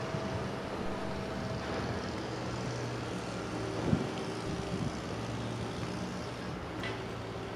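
Steady low rumble of city traffic and engines, with a couple of brief low thumps about four seconds in.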